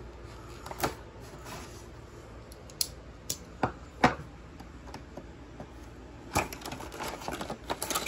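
Small cardboard box being cut open with a pocket knife and handled: a string of separate sharp taps and clicks, the loudest about four seconds in, then a quicker run of crinkly clicks near the end as the cardboard flap and paper insert are pulled open.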